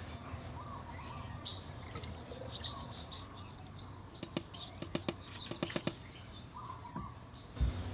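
Birds chirping over a low steady hum, with an irregular run of sharp clicks about four to six seconds in and a thump near the end.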